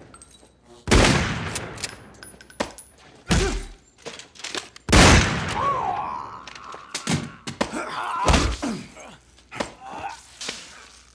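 Film fight sound effects: four heavy impacts, each with a long decaying tail, about one, three, five and eight seconds in, with men grunting and groaning as they struggle between them.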